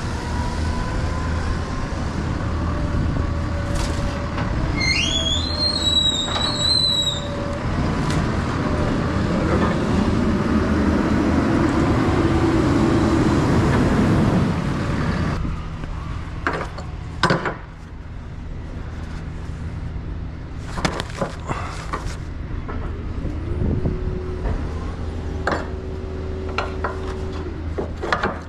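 Heavy truck engine running with road rumble, a brief high squeal rising and then held for about two seconds about five seconds in. About halfway the sound drops suddenly to a quieter yard scene with scattered sharp knocks and clunks and a steady hum near the end, as a forklift loads lumber onto the flatbed.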